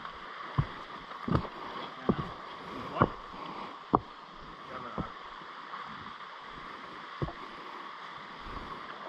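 Steady rush of a river's flowing water, with a handful of irregular short knocks and thumps on top, the loudest about three and four seconds in.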